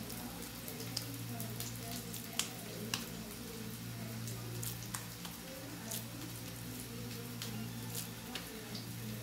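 Oil frying in a pan, with a light sizzle and irregular sharp crackling pops, over a steady low hum.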